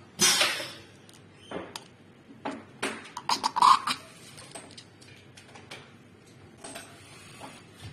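Metal disks and parts of a fluid head being handled and pressed down onto their pillars. A burst of scraping rustle at the start is followed by a cluster of sharp clicks and knocks, one with a short metallic ring about three and a half seconds in, then fainter handling noise.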